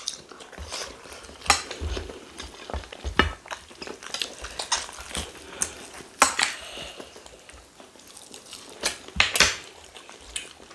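Cutlery clinking and scraping against plates while people eat rice and stew, in scattered short clicks with quieter scraping between them.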